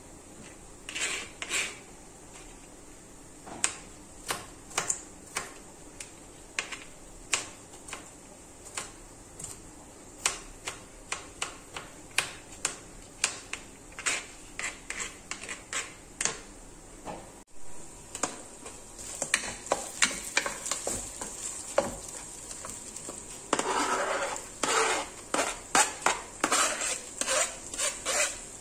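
Small kitchen knife chopping fresh herbs and garlic on a plastic cutting board, a sharp tap for each cut, about one or two a second. After a break about two-thirds in, quicker knocks and a short burst of scraping.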